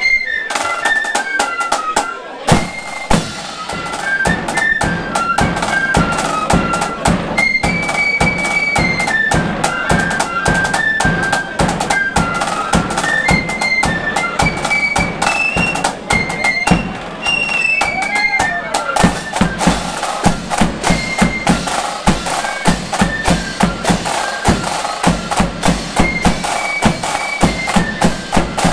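Loyalist marching flute band playing a tune: many flutes carrying a high melody over snare drums, a large bass drum and clashing cymbals. The drumming fills in fully about two seconds in, and a heavier, steady bass-drum beat comes through in the later part.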